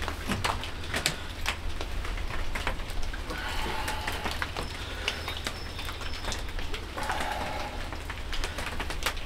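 Rain pattering in many scattered drips, with birds calling in the background and a steady low rumble.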